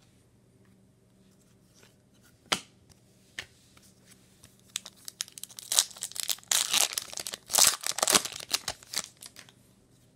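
Foil wrapper of an Upper Deck Trilogy hockey card pack being torn open and crinkled: two sharp clicks a few seconds in, then a dense run of crackling for about four seconds that dies away near the end.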